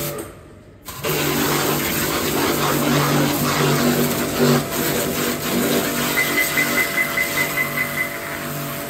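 Agaro 1800 W electric pressure washer starting up about a second in. Its motor hums steadily under the loud hiss of the high-pressure water jet blasting mud off a car's body panels.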